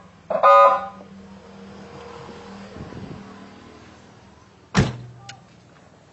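A short blast of a multi-tone 'telolet'-style horn, several steady pitches sounding together for about half a second just after the start. A sharp click or knock follows near five seconds in.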